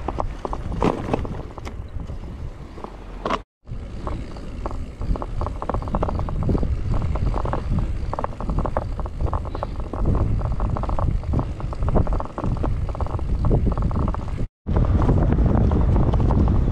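Wind buffeting the microphone of a handlebar-mounted action camera on a moving bicycle, over a steady tyre rumble with many small rattles from the bike on a rough road surface. The sound cuts out briefly twice, about three seconds in and near the end.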